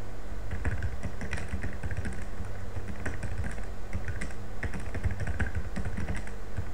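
Typing on a computer keyboard: a quick, irregular run of keystrokes over a steady low hum.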